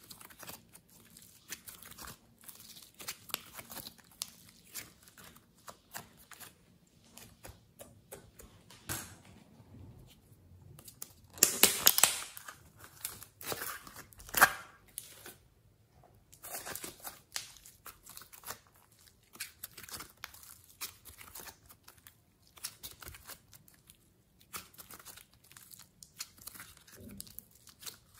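Hands kneading and pulling glossy slime, making many small sticky clicks and pops. About halfway through come a few louder crinkling crackles as a clear plastic cup of green clay is squeezed.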